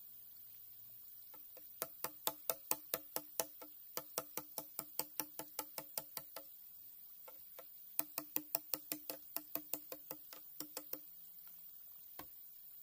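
Bamboo being struck in quick runs of about four to five hollow, pitched knocks a second, two long runs with a short pause between, then a single knock near the end.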